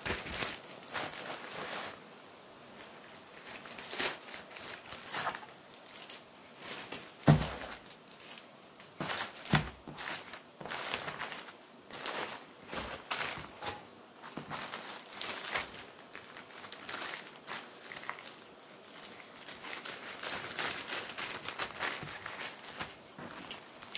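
Plastic courier mailer bags crinkling and crumpling in irregular bursts as they are picked up and handled, with one louder thump about a third of the way in as a package is set down.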